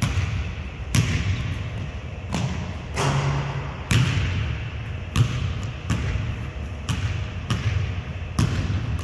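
Basketball dribbled on a hardwood gym floor: a steady run of bounces, a little more than one a second, each ringing in the gym.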